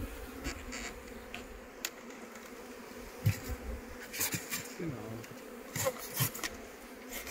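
Steady buzzing of many honeybees flying around open hives, with a few light knocks scattered through it.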